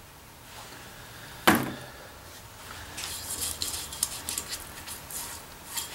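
Metal handling on a workbench: a single sharp clank about a second and a half in, then a run of light clicks and scraping.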